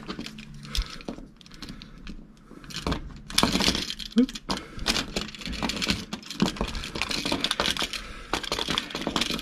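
Split ring pliers working a steel split ring and covered treble hook onto a fishing lure's hook loop: a run of small metallic clicks, ticks and jingles, sparse at first and denser from about three seconds in.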